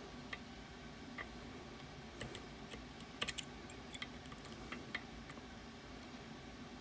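Small, irregular clicks and ticks of metal picking tools working inside a Ruko Garant lock, with a quick cluster of sharper clicks about three seconds in.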